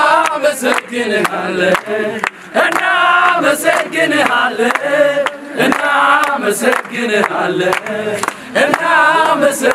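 A group of men singing a chant-like song together, clapping their hands in a steady rhythm.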